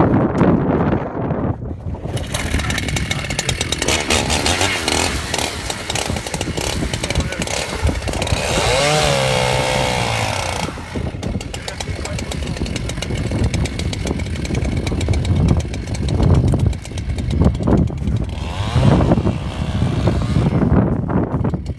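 Two-stroke gas chainsaw running and cutting into lake ice, revving up about two seconds in, then easing off and rising again near the end.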